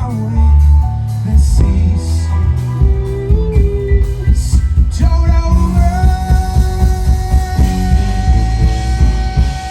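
Live band playing a groove-rock tune, with electric bass, electric guitar and drums. A long note is held from about halfway through.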